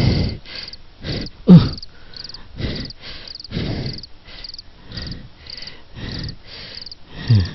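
Crickets chirping in short high pulses about twice a second, with a few short low sounds that fall in pitch, the loudest about one and a half seconds in and another near the end.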